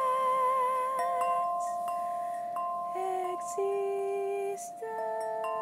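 Song music: a woman's held sung note with vibrato fades out a little over a second in. The accompaniment then carries on alone, with steady held chord tones and sparse, short, bell-like chime notes ringing over them.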